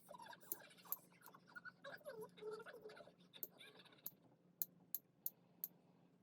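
About nine light, sharp clicks or taps at uneven intervals, over a faint murmur of speech in the first half.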